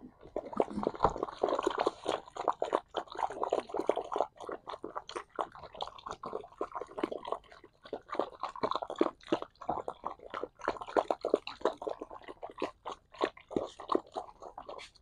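Several puppies and a dog eating rice together from one plastic bowl: many quick, irregular chewing sounds throughout.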